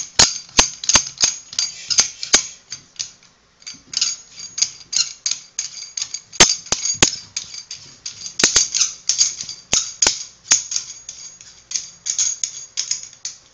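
Drain nut being spun by hand onto the threaded body of a sink drain, making quick, irregular clicking and clattering as the threads and parts knock together, with a brief pause about three and a half seconds in.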